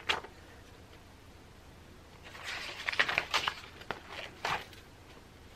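Paper pages of a spiral-bound planner being turned by hand: a short rustle right at the start, then a run of page rustles and light taps from about two seconds in to about four and a half seconds in.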